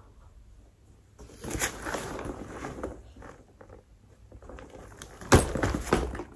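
A soft-sided fabric trolley suitcase being handled, with rustling and bumping as it is lifted and moved, then a sharp thump about five seconds in as it is set down.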